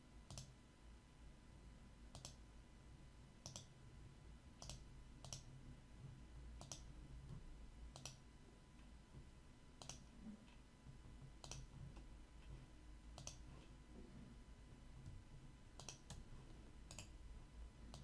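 Faint computer mouse clicks, single clicks at irregular gaps of about one to two seconds, over a low hum.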